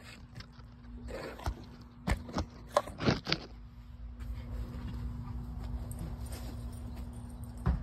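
Handling noise from a phone being set in place on a wooden table: a run of sharp knocks, taps and scrapes in the first half, then faint steady outdoor background with one more click near the end.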